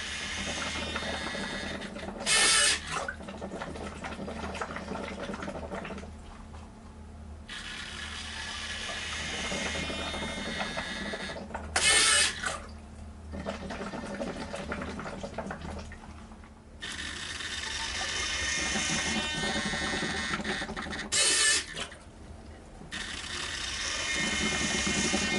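A homemade mechanical ventilator running in slow cycles: a steady low hum that swells and fades, with a short loud rush of air four times.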